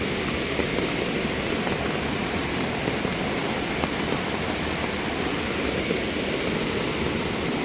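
Mountain stream swollen after heavy rain, rushing over rocks in a steady, unbroken roar.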